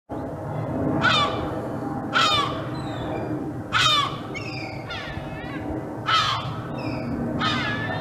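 A large gull giving loud, harsh alarm calls: five sharp, downward-sliding screams about one to two seconds apart, with fainter gull calls between them. These are warning calls from a gull guarding a chick on the ground.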